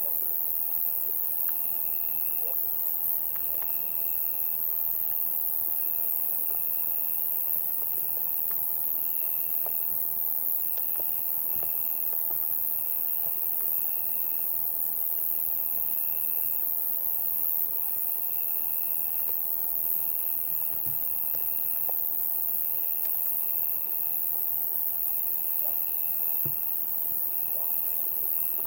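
Summer-night insect chorus: a steady, shrill high hiss from many insects, with a cricket trilling over it in repeated trills about a second long separated by short gaps.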